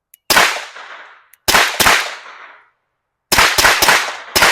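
Suppressed FN 509 Tactical 9mm pistol firing seven shots in uneven groups: a single shot, a quick pair, a rapid three and one more near the end, each crack trailing off in a short echo.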